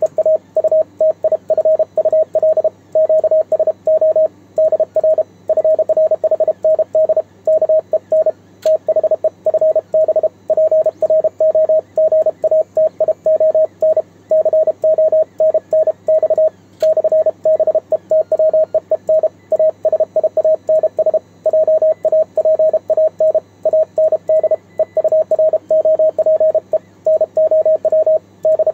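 Morse code (CW) as a single mid-pitched beep keyed on and off in fast dits and dahs from a single-lever paddle, heard through the transceiver's speaker.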